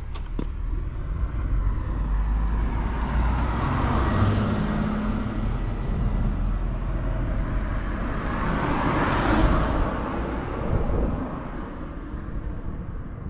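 Car engine exhaling through a TOM'S aftermarket exhaust silencer, running with two throttle revs that rise and fall about five seconds apart. It revs up cleanly with no abnormal noise.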